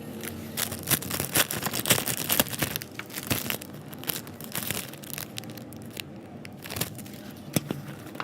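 Packaging being crinkled and torn open by hand: a dense run of crackles and rustles in the first few seconds, then scattered crinkles.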